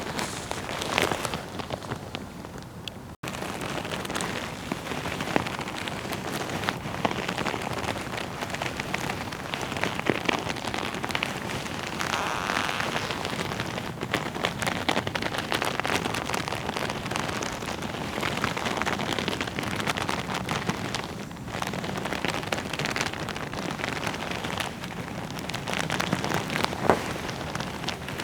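Leather jacket being rubbed: a continuous rustle packed with many small crackling ticks, with a brief gap about three seconds in.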